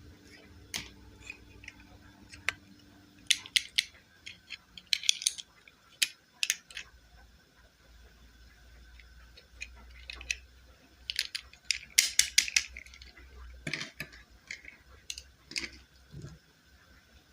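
Irregular small clicks and taps of hard plastic being handled, some coming in quick clusters of several clicks, from doll parts and toy packaging being worked by hand.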